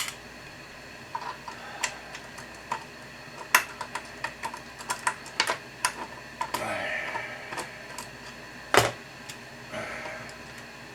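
Irregular clicks and taps of a screwdriver and screws as the chassis screws are taken out of a radio cabinet, with a softer scrape partway through and one louder knock near the end.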